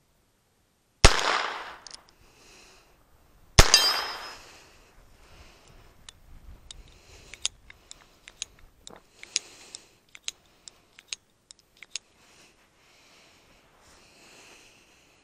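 Two shots from a Heritage Rough Rider .22 LR single-action revolver about two and a half seconds apart, each with a short ringing tail. Then a run of light metallic clicks and ticks as the revolver's cylinder is handled, typical of ejecting spent cases and reloading.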